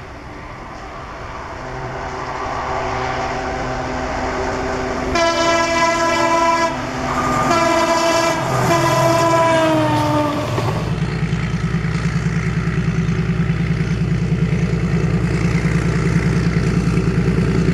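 Diesel locomotive approaching, its engine growing louder, then the multi-tone horn sounding three blasts, the last sliding down in pitch as it passes. After that comes the heavy, fast, even throb of a diesel locomotive engine working close by.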